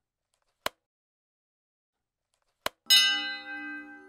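Two short mouse clicks about two seconds apart, then a small bell rings once and fades over about a second and a half: the sound effects of a YouTube subscribe-button animation.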